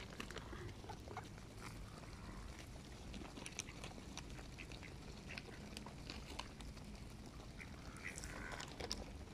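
A flock of mallards feeding on the ground, giving soft quacks, with many short ticks of their bills pecking at food on pavement. The calls are a little stronger near the end.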